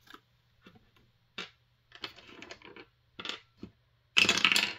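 Dice clattering onto a tabletop among light clicks and taps of hands handling dice at a wooden tray, then a louder half-second rustling scrape near the end.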